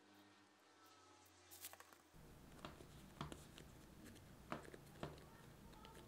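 A brief crinkle of plastic wrap, then bagel dough being pinched and rounded by hand: faint, irregular soft pats and taps of dough against the counter.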